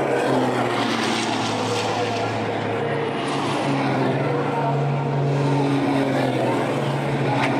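Racing trucks' diesel engines heard on the circuit, a steady engine drone whose higher notes slide slowly down in pitch as the trucks pass.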